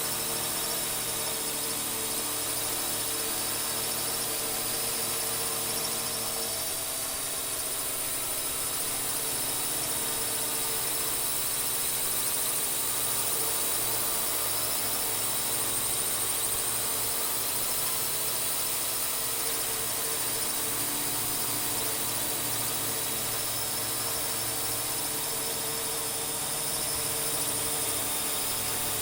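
Small quadcopter drone hovering and flying: its electric motors and propellers give a steady high whine with several held tones, rising and falling slightly in level.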